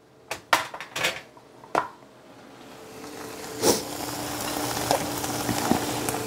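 A few clinks and knocks of kitchenware, then lean ground beef sizzling in a skillet, the sizzle growing steadily louder, with one louder knock of the pan partway through and a faint steady hum underneath.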